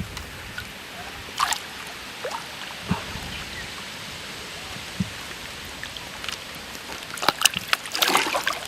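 Water splashing and sloshing in short scattered bursts, with a quick flurry of them near the end, as a hooked yellowcheek is brought in at the water's edge.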